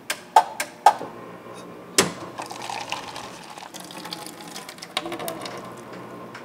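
Coffee machine dispensing: a few sharp mechanical clicks, a louder knock about two seconds in and another about five seconds in, over a steady whir and the sound of coffee streaming from the spout.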